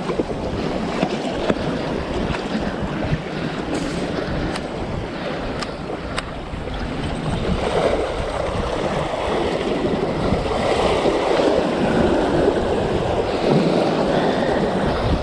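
Sea waves washing against a rocky shore, with strong wind buffeting the microphone; the surf swells louder in the second half.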